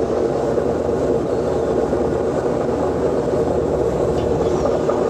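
Steady drone of a purse seiner's diesel engines and hydraulic deck machinery running at a constant pitch and level.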